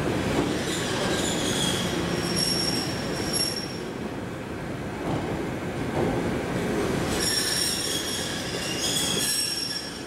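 Toyama Chiho Railway 14760-series electric train pulling slowly into a platform, its wheels squealing high and thin in two spells, about a second in and again near the end, over the low rumble of the moving train.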